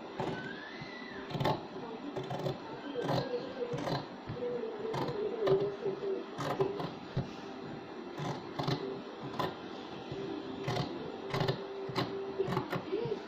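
Sewing scissors snipping through layered cloth, trimming a stitched blouse neckline seam allowance: a crisp snip about once or twice a second. A faint wavering hum runs underneath.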